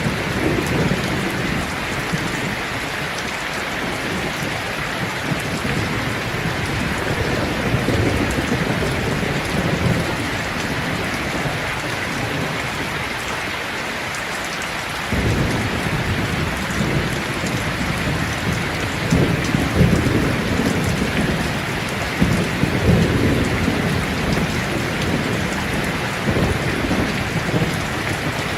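Steady heavy rain hissing, with thunder rumbling low underneath in long swells. The rumble fades out for a few seconds in the middle and comes back abruptly about halfway through.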